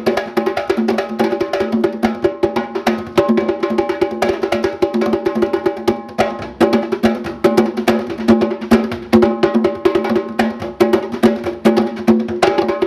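Fast percussion music: dense, rapid wooden-sounding strikes and drums over steady pitched notes.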